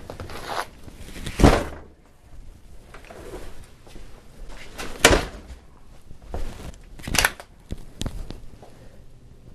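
Tactical gear (a plate carrier, helmet and battle belt) being handled and set down on a workbench mat: several sharp knocks and thuds, the loudest about a second and a half in, with rustling of nylon webbing between them.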